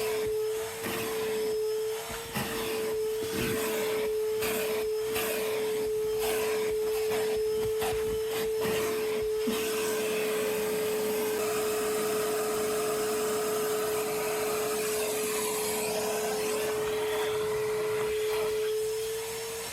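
Vacuum running with a steady, high motor whine. For about the first half, the nozzle rasps and knocks in quick strokes as it is worked over the car's interior surfaces, then the sound settles into a smoother, steady suction.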